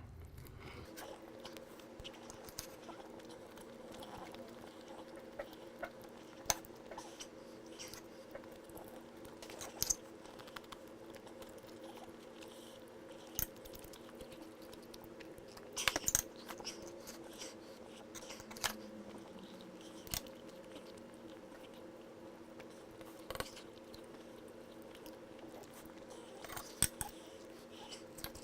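A person chewing steak, with a handful of sharp clicks scattered through. A steady low hum runs underneath.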